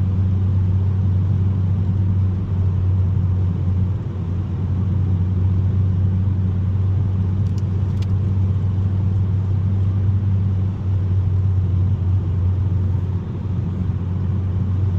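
Steady in-cabin drone of a 2021 Mazda 3 Turbo AWD cruising at a constant highway speed: a low, even engine and drivetrain hum under a wash of tyre and road noise. Two faint ticks come about eight seconds in.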